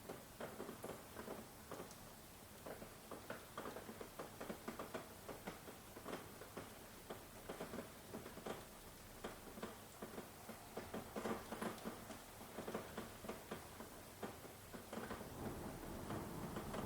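Rain pattering and dripping in many irregular close drops, as on a hard surface. A low thunder rumble starts to build near the end.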